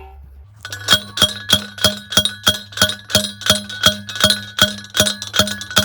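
Steel T-post pounder driving a metal T-post into the ground with short, quick strokes, about three metallic clanks a second, each with a ringing tone. The strikes start about a second in and run to the end.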